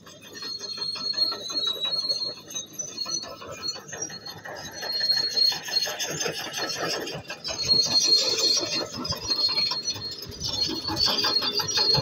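Komatsu D155A crawler bulldozer driving close by: its diesel engine running and steel tracks clattering, with an on-and-off high-pitched squeal from the undercarriage. It gets louder in the second half as the machine nears.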